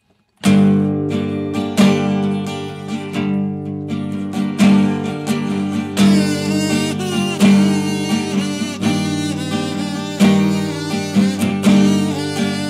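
Acoustic guitar strummed in steady chords, starting about half a second in. About halfway through a plastic kazoo joins, buzzing a melody over the strumming.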